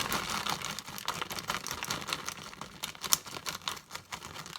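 Handling noise: irregular light crinkling with many small clicks, as of packaging or kitchen items being moved about.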